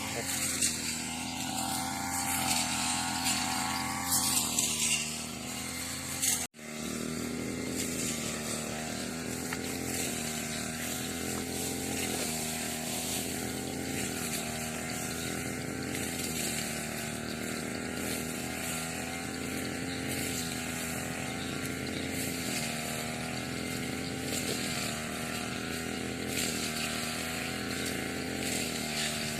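Two-stroke grass-cutting machine (brush cutter) engine running steadily at high speed while cutting grass, its pitch wavering slightly. The sound cuts out suddenly for an instant about six seconds in.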